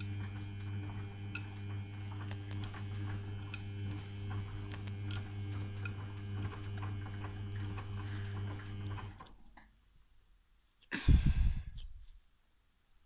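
Samsung front-loading washing machine turning its drum during a rinse: a steady motor hum with light clicks and water movement, which stops about nine seconds in as the drum pauses. A short, loud thump follows about two seconds later.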